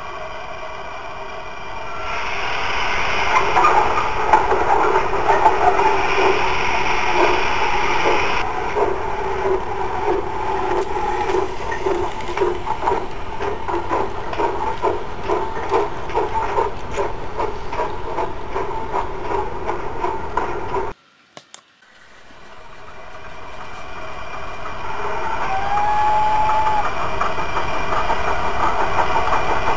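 Model railway trains running along the track with a steady rhythmic beat: first a small model steam tank locomotive pulling goods wagons past. After an abrupt cut, a second model train draws near, with a short thin tone about three-quarters of the way through.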